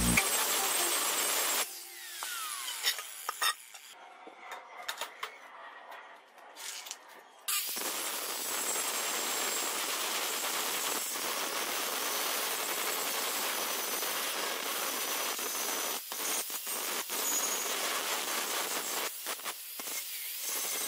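Angle grinder with an abrasive disc grinding down weld beads on a steel plate. It grinds briefly, then there is a quieter stretch of about six seconds with clicks and knocks. It then runs steadily against the plate, with a few short breaks near the end.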